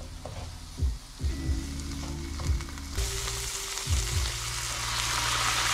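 Halloumi cubes frying with a light sizzle in a hot frying pan. About three seconds in, a much louder hissing sizzle starts as liquid is poured into the hot pan.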